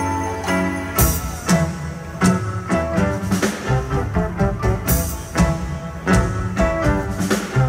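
Live band with keyboards, guitars, flute and drums playing an instrumental passage, with no singing. Drum hits land about once a second over held keyboard and string chords.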